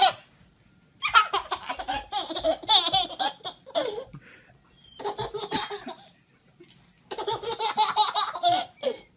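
A baby belly-laughing in three long bouts with short pauses between them.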